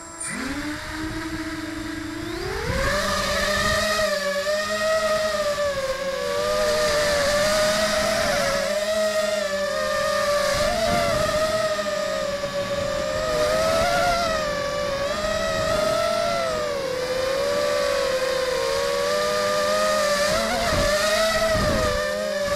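Brushless motors and propellers of a 250 mm FPV racing quadcopter, heard from its onboard camera: a low whine at idle that rises sharply about two and a half seconds in as it throttles up for take-off, then a loud whine that swings up and down in pitch with the throttle as it races low along the course.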